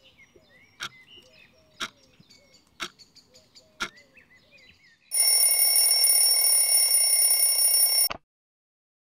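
A clock ticking about once a second with birds chirping, then a twin-bell alarm clock rings loudly for about three seconds and cuts off suddenly.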